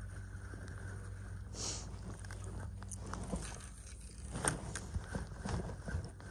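Steady low rumble of wind and flowing stream water, with a brief hiss just under two seconds in, then irregular crackling clicks from a spinning rod and reel being handled and cast, and from movement on dry bank grass.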